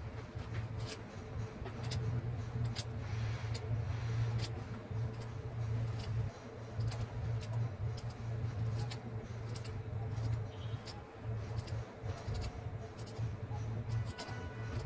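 Broccoli florets being separated from the head, giving crisp cracks and clicks at irregular intervals. A steady low hum runs underneath.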